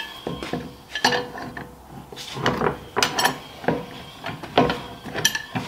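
A large pipe wrench clanking and scraping against the hub of a car's steel wheel: a string of irregular metallic knocks and clinks, some ringing briefly.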